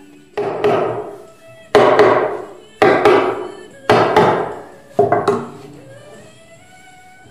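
Five heavy wooden knocks about a second apart, each ringing on briefly, over soft background music.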